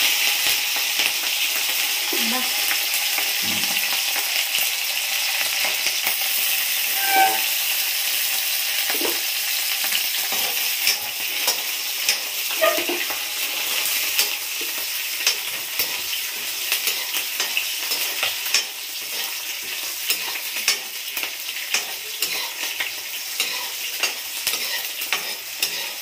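Chopped green chillies frying in hot oil with cumin seeds, a steady high sizzle that is loudest at the start and slowly eases. A metal ladle stirs them, clicking and scraping against the pan, more often in the second half.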